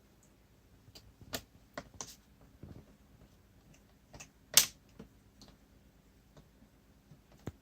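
Scattered light clicks and taps of a small screwdriver and tiny screws as screws are driven into a laptop's screen frame, with one sharper click about halfway through.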